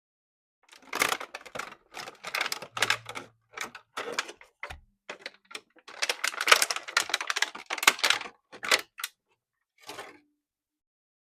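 Irregular bursts of quick clicks and crackles from plastic toy parts and packaging being handled, with silent gaps between them. The busiest stretch comes a little past the middle, and a last short burst comes near the end.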